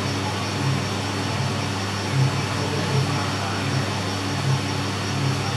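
Drum coffee roaster running: a steady motor and fan hum with a low pulse that recurs about four times every three seconds.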